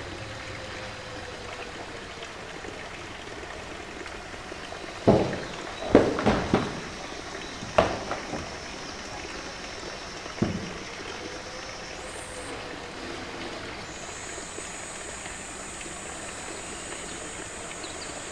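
A polar bear's paws knocking against a hollow blue plastic tank as it stands and shifts its weight on it: a cluster of sharp hollow knocks around the middle and one more a few seconds later, over a steady background hiss.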